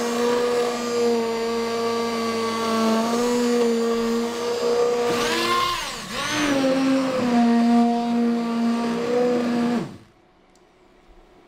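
Hand-held immersion blender running in a pot of thick red lentil soup, puréeing it: a steady motor whine that briefly dips and wavers in pitch around halfway through, then cuts off about ten seconds in.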